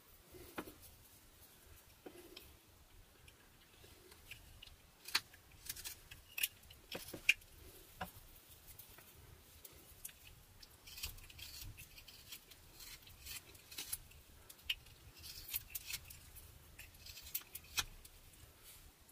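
Whittling knife slicing shavings from a butternut carving: a series of short, sharp cuts at uneven intervals, coming more often in the second half.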